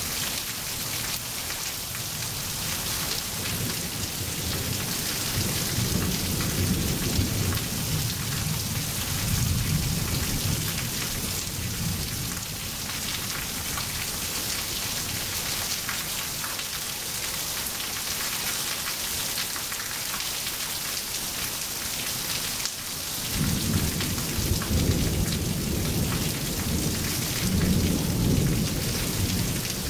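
Steady heavy rain with rolling thunder: a long rumble through the first half that dies away, then another breaking in suddenly about three quarters of the way through.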